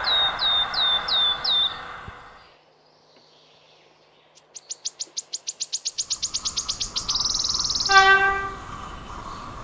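The rumble of a passing passenger train fades under a few high, hooked chirps, then near silence. Then a rapid high chirping trill and a steady high buzz of birds and insects, cut through about eight seconds in by a short, loud single-note horn blast from an approaching EP07 electric locomotive.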